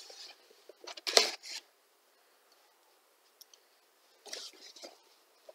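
A blade slitting the packing tape on a cardboard box, with a few short scratchy cuts and rasps. The loudest comes about a second in, and quieter handling rustles of the cardboard follow near the end.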